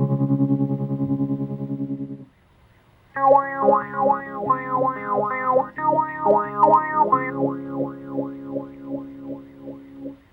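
Electric guitar played through a real-time digital effects processor: a held chord pulsing rapidly in volume that cuts off about two seconds in, then after a short pause a run of picked single notes.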